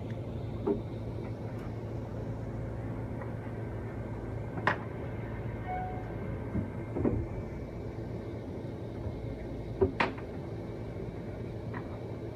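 Steady low hum, with about half a dozen short sharp knocks and taps scattered through it, the loudest about five and ten seconds in.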